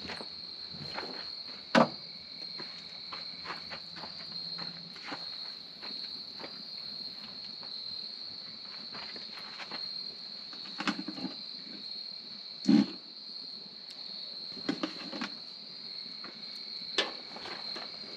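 Steady evening chorus of crickets, one unbroken high-pitched trill. A few sharp clicks and knocks sound over it, the loudest about 2 s and 13 s in.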